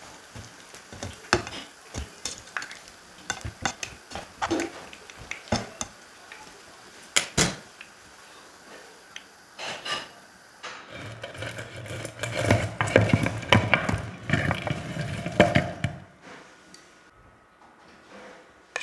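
Kitchen utensils knocking and clinking against cookware and dishes in a string of sharp taps. About eleven seconds in, the clattering becomes busier and denser for about five seconds, then dies down.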